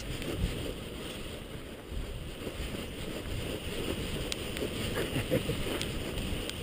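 Wind rushing and buffeting over the microphone of a camera in flight, a steady low rumble, with a few faint clicks in the second half.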